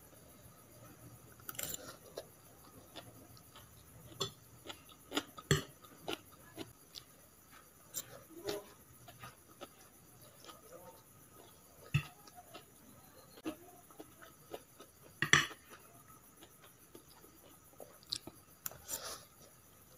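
Metal fork and spoon clinking and scraping on a plate of chow mein noodles, in scattered separate clicks, the loudest about three-quarters of the way through, with eating sounds of chewing noodles in between.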